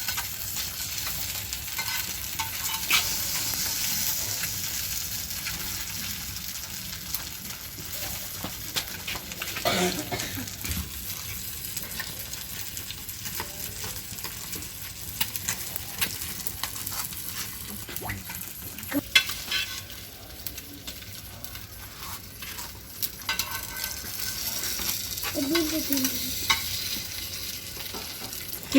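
Fish pieces sizzling in oil on a hot tawa, a steady frying hiss with occasional clicks and scrapes as the pieces are turned.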